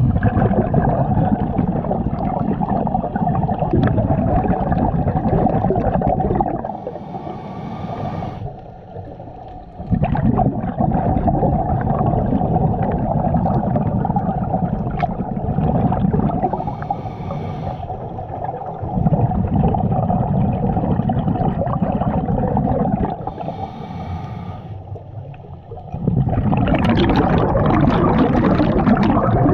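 Scuba diver breathing through a regulator, heard underwater from the diver's own head: long stretches of gurgling exhaled bubbles, broken three times by quieter, hissing inhalations.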